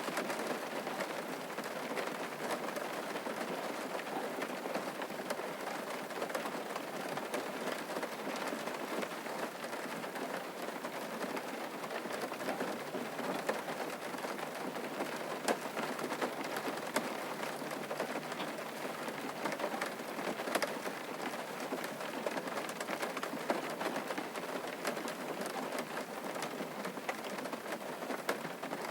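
Steady rain falling, with many individual drops pattering as sharp little ticks over an even hiss.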